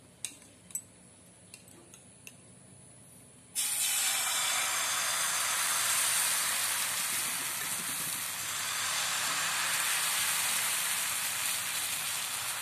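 Rice batter poured into a hot oiled non-stick frying pan, sizzling as it hits the oil. A few light clicks come first, then the sizzle starts suddenly about three and a half seconds in and carries on steadily.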